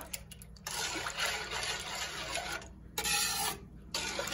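Metal ladle stirring a coconut milk and brown sugar mixture in a nonstick frying pan, scraping and swishing in three passes with two short breaks.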